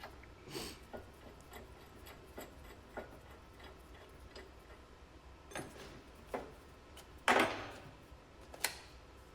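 Scattered light clicks and knocks of metal tools and brake parts being handled, with a louder clatter about seven seconds in and a sharp click shortly after.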